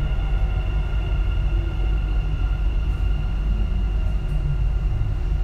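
Dubai Metro train running through an underground tunnel, heard from inside the carriage: a steady low rumble of wheels on rail with a steady high whine over it.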